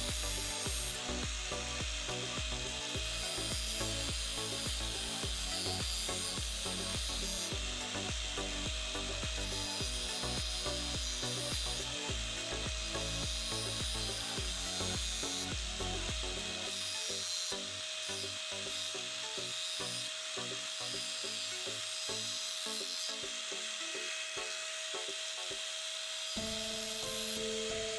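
A tool working wood, making a continuous rubbing, rasping sound.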